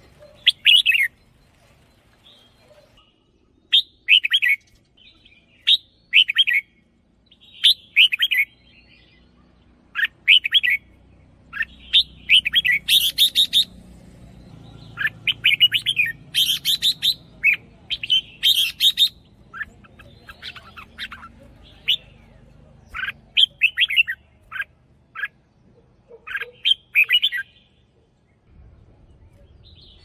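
Red-whiskered bulbul singing: short, bright whistled phrases repeated every couple of seconds, coming thicker and faster in the middle, then spacing out again, with a short pause near the end.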